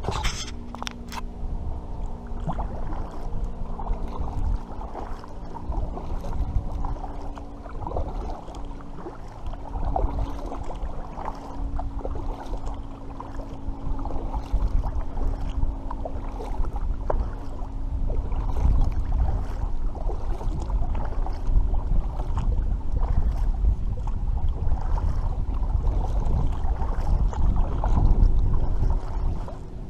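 Kayak drifting on the water, with wind rumbling on the microphone, small knocks and splashes against the hull, and a steady low hum underneath. A couple of sharp clicks at the very start.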